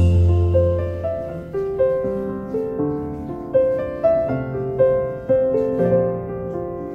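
Background music: a slow, gentle piano melody, single notes struck and left to fade.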